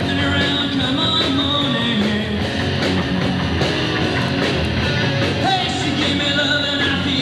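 Live rock band playing: electric guitars and a drum kit with a steady beat, and a male singer singing into a microphone.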